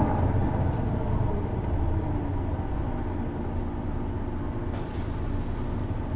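Isuzu Erga city bus's diesel engine running, heard from inside the cabin, easing off slowly as the bus slows. A brief hiss of air comes about five seconds in.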